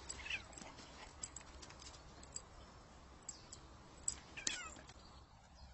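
Faint cat meows: a short one near the start and a longer, falling one about four and a half seconds in, with a few small clicks between.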